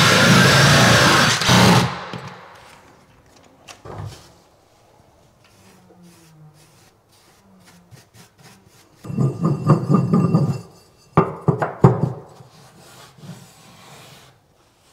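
Cordless drill driving a Super Rod hole saw through a chipboard floor, cutting loudly for the first couple of seconds and then stopping. Later there is scraping and a few sharp knocks as the cut chipboard disc is levered out of the hole with a screwdriver.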